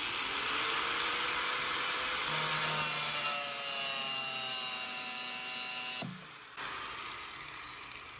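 Corded angle grinder with a cutoff wheel cutting through vinyl-coated stainless-steel lifeline wire. Its whine sags slowly in pitch under load and drops off sharply about six seconds in, followed by a quieter sound that fades away.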